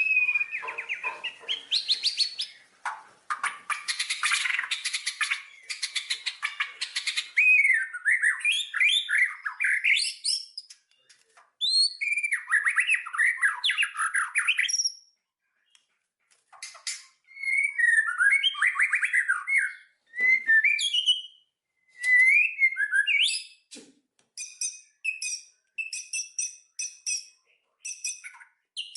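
Songbirds chirping and singing: a varied run of whistled notes, rising and falling chirps and fast chattering trills, broken by a few short silences. Near the end comes a quick series of repeated high chips.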